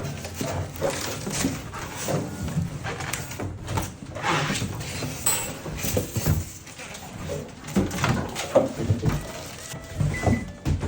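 Irregular knocks and clatter of things being handled, then short microwave keypad beeps near the end as the microwave is set to run.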